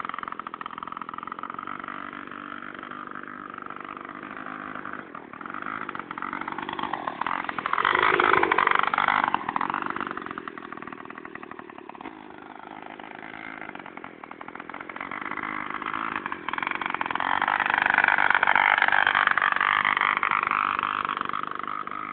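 Two-stroke engine of a Druzhba chainsaw fitted to a bicycle, running steadily. It grows louder and fades again twice, about a third of the way in and near the end, with a brief drop in pitch at the first peak.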